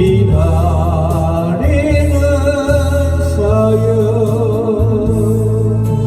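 Korean trot song: a singer holds three long notes with a wide vibrato over electronic organ accompaniment.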